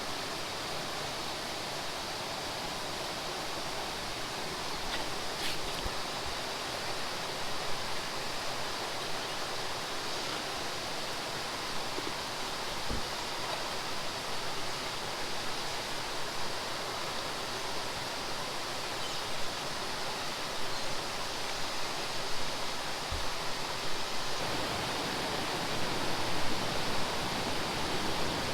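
A steady rushing noise like flowing water, even throughout, with a few faint sharp clicks scattered through it.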